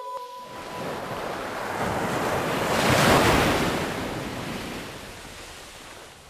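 A rushing whoosh effect in the soundtrack that swells to a peak about halfway through and then slowly fades, like a wave surging in and drawing back.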